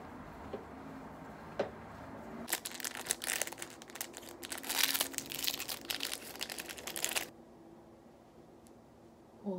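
A packet of prescribed pills being torn open and crinkled by hand, a dense run of crackling that lasts about five seconds and stops suddenly. Before it there are only a few faint ticks.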